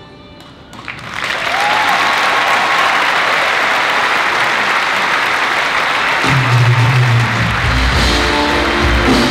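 Audience applause swelling up about a second in as the music fades at the end of the act, then holding steady. Music with a bass line comes in under the clapping in the last few seconds.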